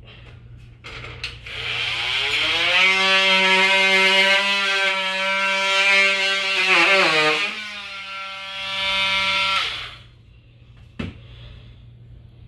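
Electric power tool motor spinning up with a rising whine, running at a steady pitch, dipping briefly as if under load partway through, then running on and cutting off. A sharp click follows about a second later.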